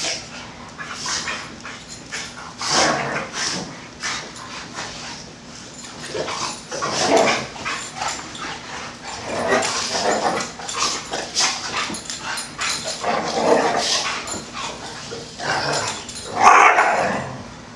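A Bullmastiff and a Belgian Malinois play-fighting: irregular dog growls and noises in short bursts, with one louder outburst near the end.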